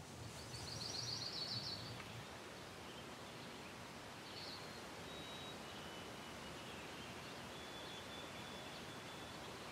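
Quiet outdoor ambience with a steady background hiss; a small bird gives a quick high trill about half a second in, followed later by a few faint, thin, high chirps.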